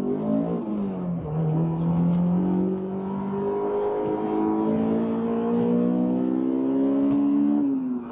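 Honda S2000 AP1's F20C four-cylinder engine, heard from inside the cabin, pulling hard under acceleration. Its pitch climbs, drops at an upshift about half a second in, rises steadily for about six seconds, then drops again with another upshift near the end.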